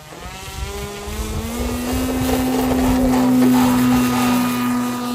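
Electric motor and pusher propeller of a half-scale RQ-7 Shadow RC plane throttling up for takeoff. It starts as a whine rising in pitch over the first two seconds, then settles into a steady drone that grows louder toward the middle and eases a little near the end.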